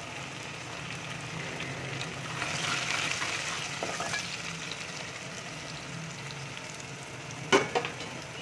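Sliced onions sizzling in hot oil in an aluminium pot while a steel spoon stirs them; the sizzle swells for about a second around two and a half seconds in. Near the end comes a sharp metal clink, the loudest sound.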